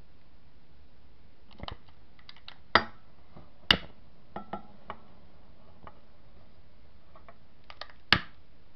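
A scattered series of light clicks and taps, with three sharper knocks, from handling things against a metal pan.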